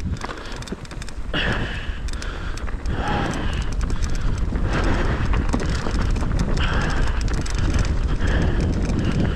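Rocky Mountain Instinct full-suspension mountain bike rolling fast down a rocky dirt trail, with rapid small clicks and rattles from the bike over the stones and steady wind buffeting the microphone.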